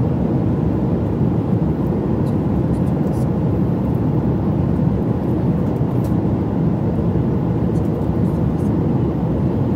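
Steady low drone of a Boeing 737 MAX 9 airliner cabin in flight: engine and airflow noise heard from inside at a window seat, even throughout. A few faint light ticks sit on top of it.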